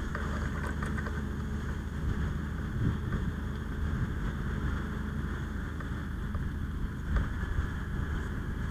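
Steady low engine drone of a fire engine running its pump to supply the hose lines, with a single short knock about seven seconds in.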